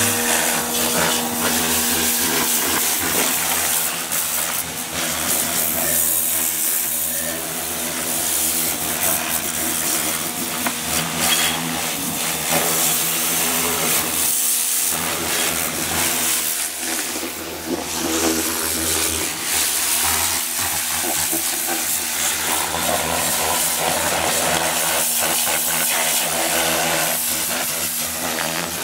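Pressure washer running: a steady motor hum under the continuous hiss of the water jet blasting mud off a stripped car's engine bay and bodywork.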